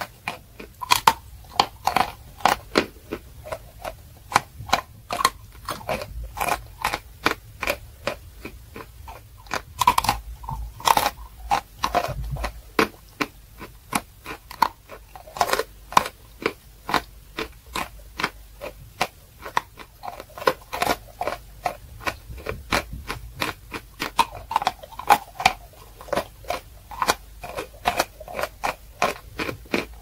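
Close-miked biting and chewing of chunks of natural chalk: a continuous run of sharp, dry crunches, a few a second, without pause.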